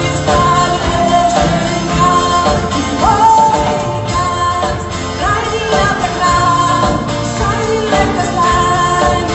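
A song with a lead vocal over a full instrumental accompaniment. The sung phrases often begin with an upward slide.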